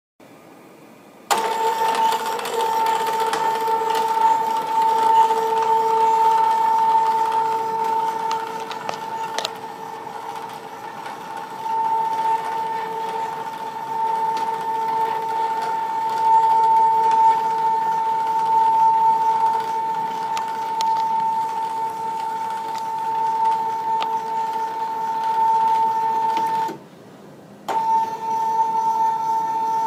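Stepper motor driving a homemade panel saw's carriage through plastic gears and a roller chain, a steady whine that starts about a second in. It stops for about a second near the end, then starts again.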